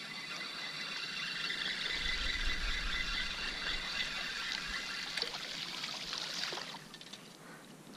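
Spinning reel cranked steadily while a small smallmouth bass is reeled to the boat, a high whirring whine that stops about six and a half seconds in, with light splashing from the fish at the surface.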